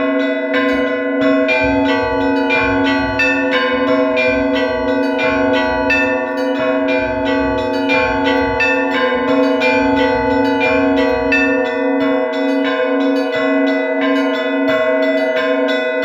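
Orthodox church bells ringing: smaller bells struck in a quick repeating pattern, several strikes a second, over the steady ringing of a larger bell.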